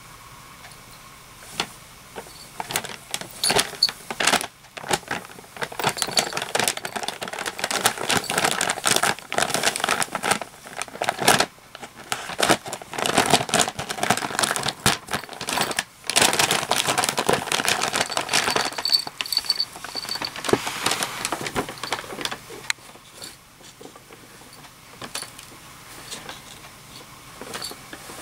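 Brown paper bag crinkling and rustling as cats push into and paw at it, mixed with the jingle of small bells on their collars. The rustling is dense and busy for most of the time, then thins to occasional rustles over the last few seconds.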